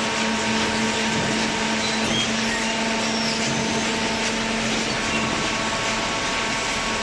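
Hydraulic baling machine running: a steady motor-and-pump hum with a constant low tone.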